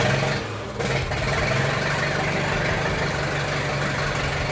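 A 1937 Caterpillar Twenty-Two crawler tractor's four-cylinder engine, hand-crank started: it catches about a second in and then runs steadily.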